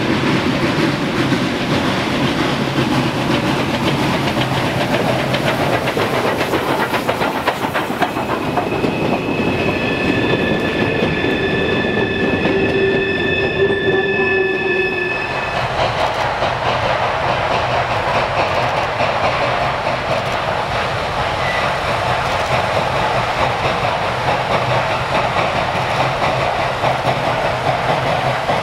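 Freight train behind the 2-6-6-2 Mallet steam locomotive no. 1309 rolling past, its loaded hopper cars' wheels clicking over the rail joints. A steady high squeal runs for several seconds in the middle. After that the sound changes to the locomotive working steadily under heavy exhaust at a distance.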